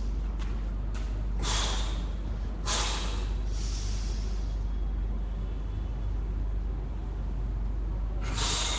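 A weightlifter's hard breaths while back squatting a 140 kg barbell: three short, sharp breaths about a second and a half, three seconds and eight and a half seconds in, over a steady low hum.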